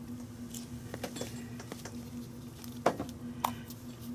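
Faint knocks and clinks of small kitchen items being handled, with two sharper knocks about three seconds in, over a steady low hum.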